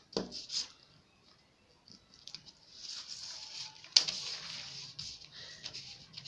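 Sheets of pattern paper rustling and sliding over a wooden table as they are moved by hand, with one sharp click about four seconds in.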